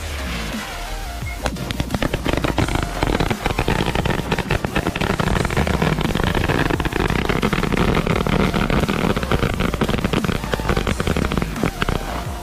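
A chakri ground spinner fizzing. About a second and a half in, the ring of small firecrackers around it starts going off in a rapid, unbroken string of sharp bangs, lasting about ten seconds, with music underneath.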